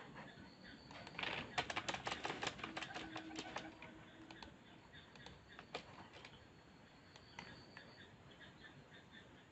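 Faint clicking of a computer keyboard and mouse. A quick run of clicks comes about a second in and lasts a few seconds, then thins to a few scattered clicks.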